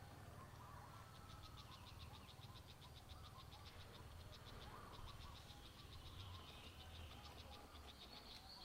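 Faint calling animal: an even, rapid train of high-pitched pulses, about eight a second, over a low rumble.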